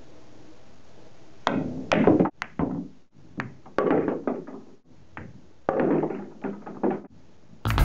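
Pool balls clacking together and knocking into the pockets of a pool table: several short clusters of sharp clicks and rattles, each cut off abruptly. Piano music comes in at the very end.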